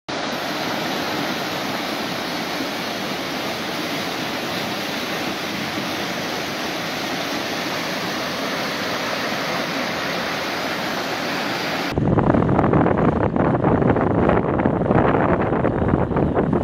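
Fast-flowing floodwater rushing through a flooded creek, a steady full hiss of churning water. About twelve seconds in it cuts abruptly to louder, gusty wind buffeting the microphone.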